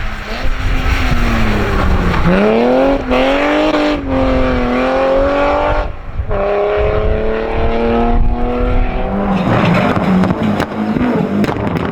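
Rally car engine accelerating hard: its pitch climbs and drops back at each of two quick gear changes, then settles lower and rougher near the end with sharp clicks.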